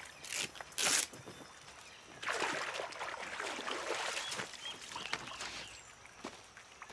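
Water splashing as a cloth is dunked in a river and wrung out: two short splashes in the first second, then a longer spill of water streaming off the cloth from about two seconds in until nearly six.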